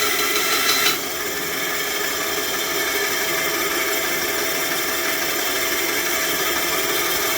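Craftsman benchtop bandsaw running. A louder, higher-pitched sound stops about a second in, leaving the saw running steadily.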